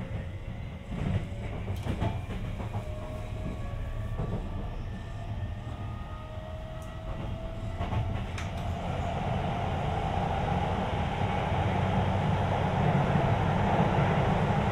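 Heard on board a Sotetsu 20000 series train: the motor and Hitachi SiC-VVVF inverter whine, several faint tones rising slowly in pitch as the train gathers speed. Wheel-on-rail running noise grows steadily louder in the second half, with a few rail-joint clicks.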